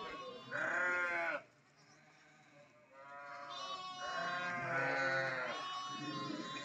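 Sheep bleating. A short loud bleat comes about half a second in; after a brief lull, several bleats overlap from about three seconds on.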